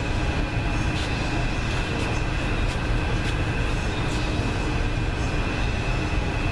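A steady mechanical rumble with a thin, high whine over it, and a few faint light ticks.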